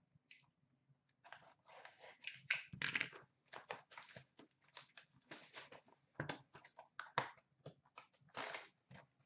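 Hockey card box packaging being torn and crinkled open by hand: a quick, uneven run of faint rips and rustles of wrapper and cardboard.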